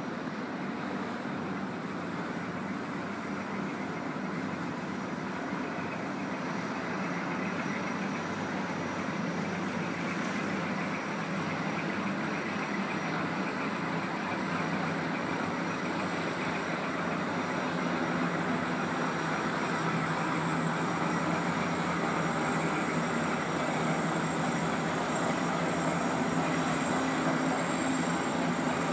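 Steady rumble and hiss of a large ship under way, growing slightly louder toward the end.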